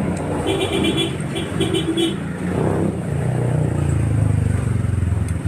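A motor vehicle engine running close by in street traffic, its low hum growing louder in the second half. A row of short high beeps sounds in the first two seconds.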